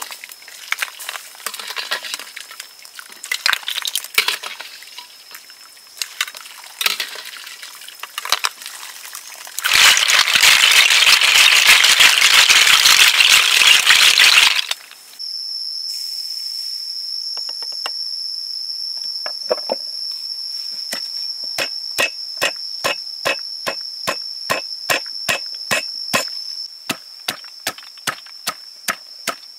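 Pestle pounding garlic, red chilies and sugar in a mortar, with regular strokes about two a second through the last third, over a steady high-pitched insect drone. Before that come scattered light clicks and, about ten seconds in, five seconds of loud rushing noise.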